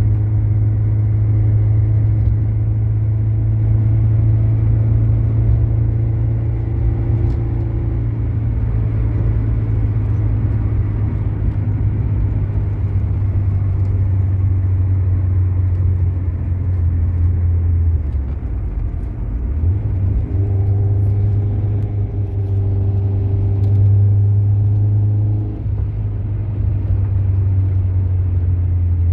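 Car engine and road noise heard from inside the cabin while driving: a steady low drone that dips and shifts in pitch briefly about two-thirds of the way through, then settles again.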